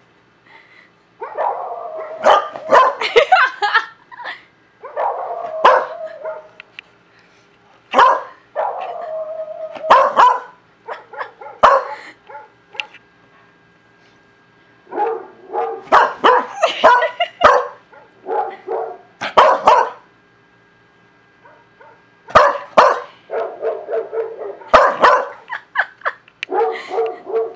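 A dog barking in repeated bouts of several barks, with pauses of a second or two between bouts and a longer quiet stretch about halfway through.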